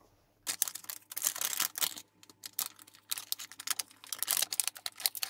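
Wide heat-shrink tube crinkling and clicking as it is handled and slid over a tape-wrapped 18650 battery pack: quick irregular crackles with short pauses.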